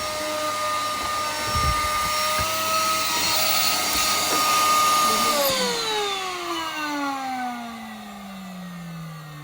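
Vacuum cleaner running with a steady high motor whine, then switched off about five and a half seconds in: the whine falls steadily in pitch and fades as the motor spins down.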